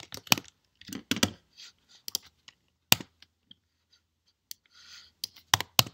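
Computer keyboard keystrokes and clicks, irregular single taps rather than steady typing, with a loud pair close together near the end.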